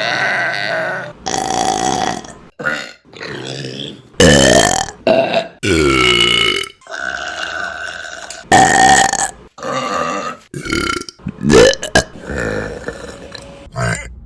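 Women burping, about a dozen loud burps one after another in quick succession, some long and drawn out with the pitch sliding down, others short.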